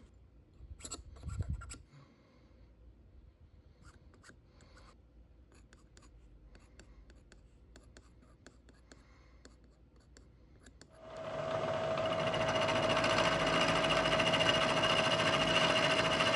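A steel scriber scratching lines through layout fluid on a gear blank: a run of faint scratches and ticks. About eleven seconds in, a milling machine starts up and runs steadily with a whine.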